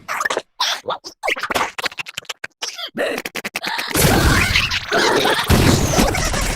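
Choppy, cut-up cartoon sound effects: a string of short sharp sounds broken by brief gaps, then about four seconds in a denser, louder run of noisy effects.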